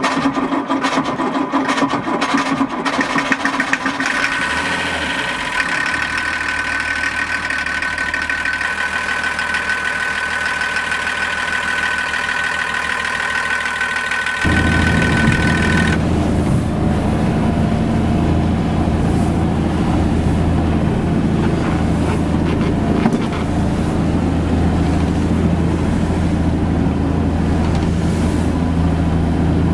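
Mercedes-Benz OM321 5.1-litre six-cylinder marine diesel running just after its first start of the season, with a rapid ticking clatter in the first few seconds that settles into a steady idle with a high steady tone over it. About halfway through, the sound changes abruptly to a low steady drone: the same diesel driving the boat under way.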